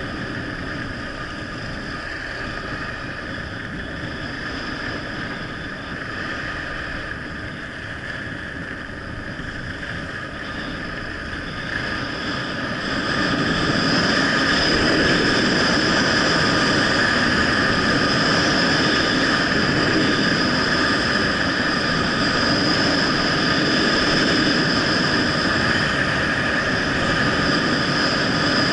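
Wind rushing over a Sony HDR-AS15 action camera during a fast downhill ski run: a steady roar with a few held whistling tones. It grows louder about halfway through as the skier speeds up to around 65 km/h.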